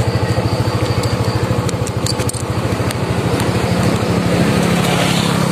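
Yamaha scooter's single-cylinder engine running with a fast, even beat, its sound building from about three seconds in as the scooter gets under way. A few light clicks come about two seconds in.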